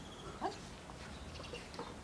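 Dog giving one short, faint whine about half a second in.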